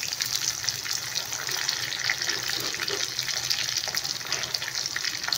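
Shallots and garlic cloves sizzling in hot oil in an iron kadai, with a steady hiss and scattered small crackles: the tempering stage of a South Indian kuzhambu, after mustard seeds and fenugreek.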